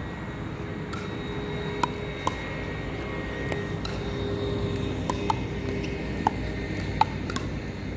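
Pickleball paddles striking a plastic pickleball during a rally: about six short, hollow pops, two close together near two seconds in and a quicker run of exchanges from about five seconds on. A steady engine drone runs underneath.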